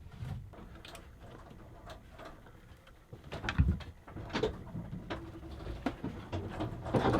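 Scattered small clicks, taps and a few short knocks of hands and tools working at the engine's cooling-water pump, taking out its worn-out rubber impeller.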